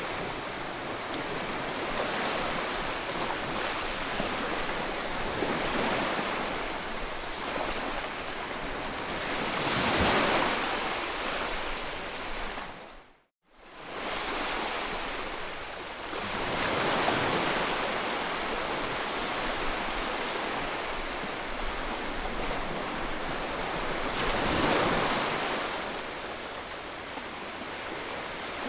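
Ocean waves breaking and washing ashore, the surf swelling up and falling back every several seconds. About halfway through, the sound drops out to near silence for under a second.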